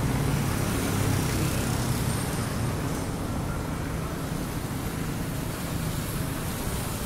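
Street traffic: a steady wash of road noise from passing vehicles, with a low engine hum that is loudest in the first few seconds and slowly fades.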